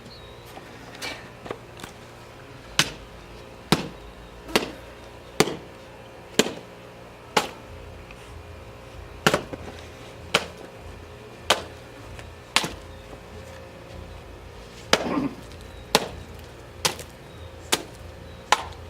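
Wooden croquet mallet striking a watermelon again and again: sharp whacks about once a second, with a short pause about two-thirds of the way through.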